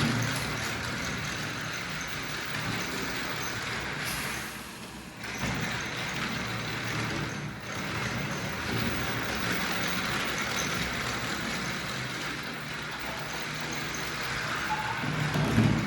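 Remote-control toy train running along its track, a steady mechanical whir and rattle that dips briefly about four to five seconds in.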